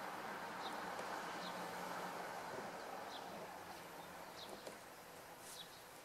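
Short, high chirps of a small bird, repeated every second or so, over a steady background hum.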